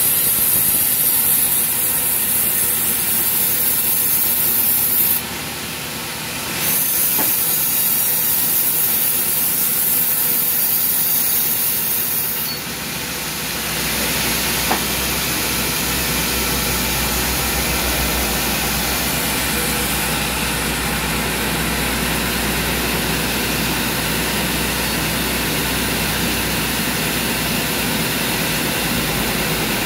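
Band sawmill blade cutting through a teak log with a loud, high hiss, dipping briefly about five seconds in. About twelve seconds in the cut ends, and the saw and its drive run on unloaded with a lower, steadier sound.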